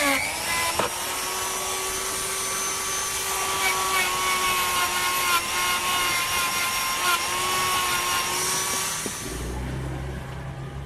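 Electric power tool running under load with a steady whine over a grinding hiss, as in grinding or sanding rusty scissor steel. It stops about nine seconds in, leaving a low hum.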